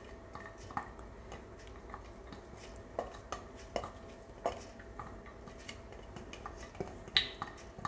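Silicone spatula scraping and tapping inside a plastic food-chopper bowl as chopped apples are worked out into a baking dish: irregular light knocks and scrapes, a few sharper taps among them.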